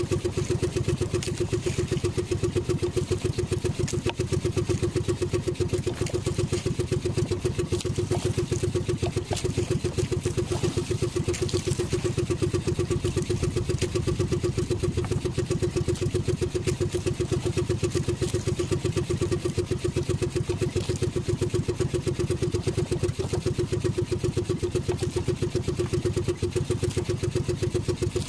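Outrigger fishing boat's small engine running steadily, with a fast, even pulsing beat.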